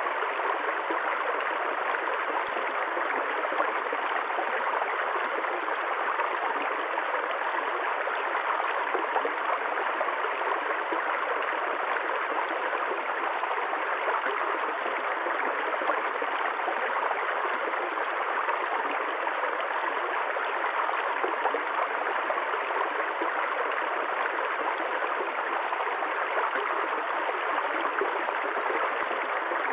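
Running water flowing in a steady, unbroken rush.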